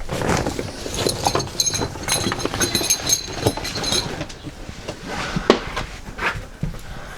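Rummaging and handling noises while an extension cord is fetched: irregular knocks and clatter, with a stretch of light metallic clinking and jingling, and one sharper knock near the end.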